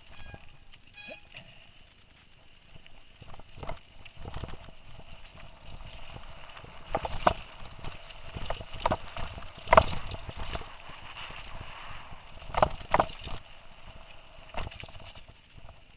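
Mountain bike rattling and clattering over a bumpy dirt trail: irregular sharp knocks from hits over rough ground, over a low rolling rumble, with the hardest knock about ten seconds in.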